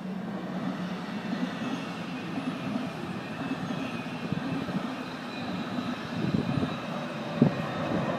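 Intercity train passing through, control car leading and pushed by a class 101 electric locomotive: a steady rumble of coach wheels on the rails with a faint high ringing. It grows rougher and louder near the end as the locomotive goes by, with a sharp clack about seven seconds in.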